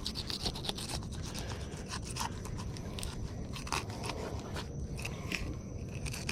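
A fillet knife cutting and scraping through a black drum's large, tough scales and skin, in a run of short crunching scrapes.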